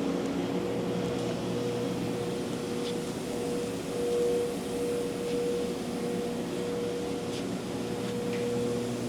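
Powered Haas VF-1 vertical machining center humming steadily, with a constant mid-pitched tone over a low machine drone.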